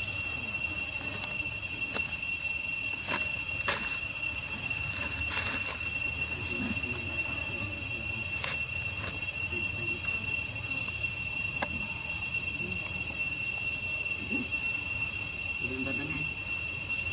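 Insects droning steadily in one high, even tone, with a few faint clicks scattered through.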